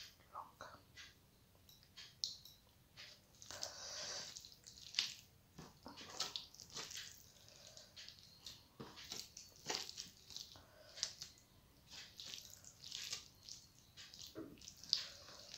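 Fingers mixing rice with runny lentil dal on a steel plate: soft, irregular wet squelches and small clicks.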